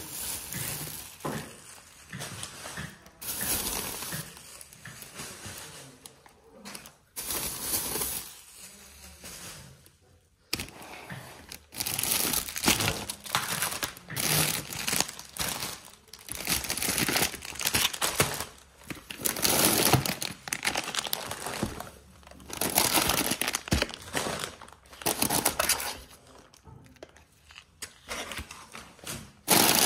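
Plastic grocery packaging and thin produce bags crinkling and rustling as they are handled, in irregular bursts with short pauses between.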